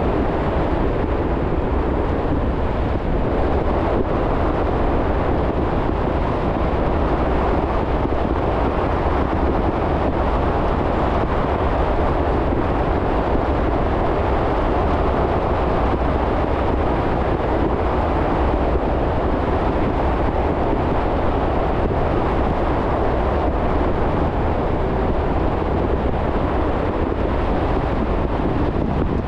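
Steady road noise from a car driving: a continuous rumble of tyres and wind, even and unchanging throughout.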